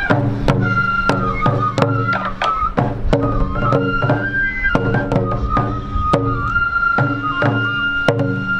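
Sansa odori folk music: a Japanese bamboo flute (fue) piping a melody over frequent taiko drum strikes. The flute settles into one long held note in the last few seconds.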